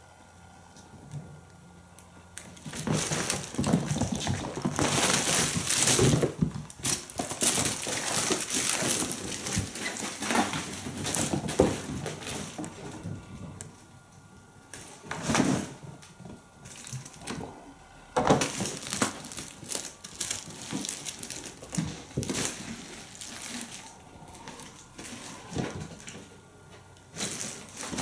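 Kittens playing: irregular rustling and crinkling of a fabric play tunnel, with scampering and scuffling on the floor and cat furniture. It comes in bouts with short quieter gaps between them.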